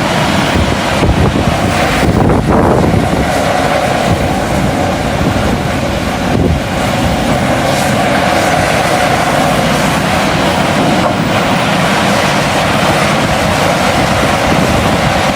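Heavy mining machinery running steadily, with wind rumbling on the microphone.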